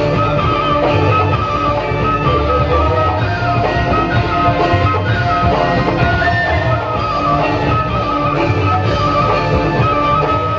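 Loud instrumental music for a topeng ireng dance: a melody line over a steady low drum beat, with no singing.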